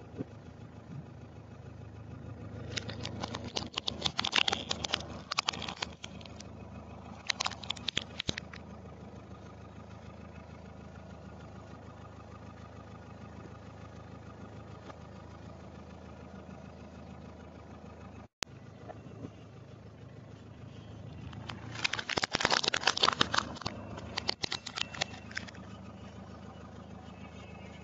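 A car engine idling with a steady low hum while its tyre rolls over hard plastic toys, crushing them with bursts of crackling and crunching: a few seconds in, again briefly about seven seconds in, and once more about twenty-two seconds in.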